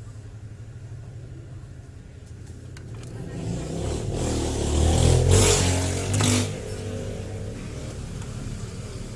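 A motor vehicle passing by: its engine and road noise swell up over a few seconds, peak, and fade away, over a steady low hum.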